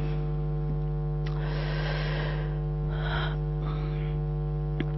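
Steady electrical mains hum from a microphone and sound system, with a few faint soft noises about a second and three seconds in.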